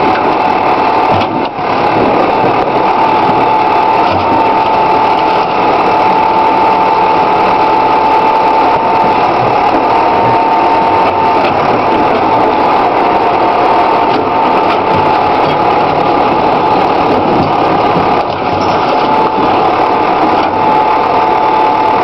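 Backhoe engine running steadily under load, with a steady high-pitched whine over the engine noise as the boom and bucket work.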